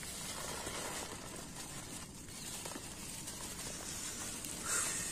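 Woven plastic sack rustling and crinkling as hands fold it open, with a brief louder rustle near the end.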